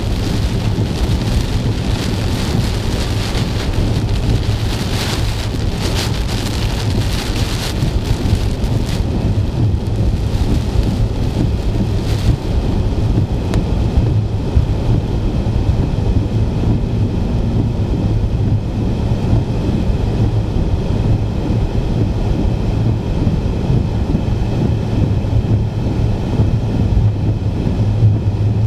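Heavy rain beating on a moving car, heard from inside the cabin over the steady drone of the engine and tyres. The rain's hiss eases about nine seconds in, leaving mostly the road drone.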